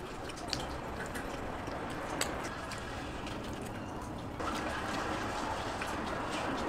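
Water running and splashing, with scattered drips and clicks; it gets louder about four seconds in.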